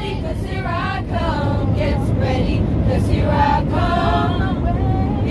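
A choir singing, several voices together, over the steady drone of an airliner cabin.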